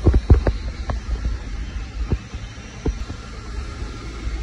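Several dull thumps over a steady low rumble: a quick cluster of four or five in the first second, then two more spaced about a second apart.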